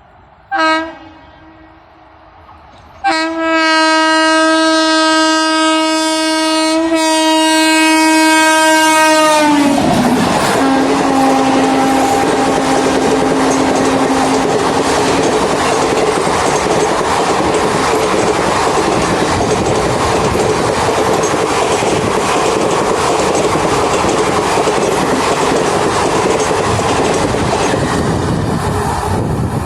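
WAP-7 electric locomotive's air horn: a short toot, then a long blast of about seven seconds whose pitch drops as the locomotive passes. Then the loud steady rush and wheel clatter of the express train's coaches speeding by.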